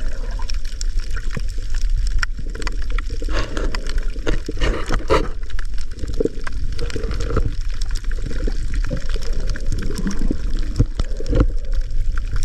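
Seawater sloshing and gurgling around the microphone in the sea, with irregular crackles and clicks over a steady low rumble.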